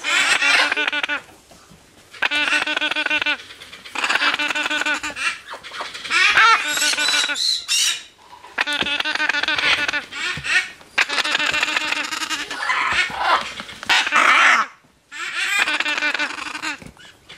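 Hand-reared parrot chicks giving food-begging cries during a feed: about eight bursts of rapid, pulsing, rhythmic calls, each a second or two long, with short pauses between.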